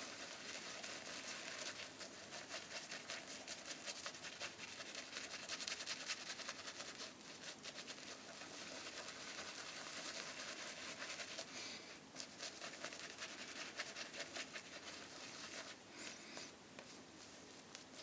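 Semogue 1520 boar-bristle shaving brush scrubbing Williams soap lather on the face, a steady, rapid swishing of wet bristles as the lather is built up.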